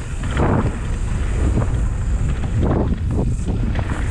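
Wind buffeting the microphone as a Canyon Spectral 29 mountain bike rides fast down a dirt flow line, with the rumble of its tyres on the trail and several louder surges.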